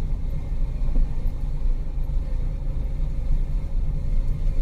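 Car engine and tyre rumble heard from inside the cabin while driving slowly, a steady low rumble.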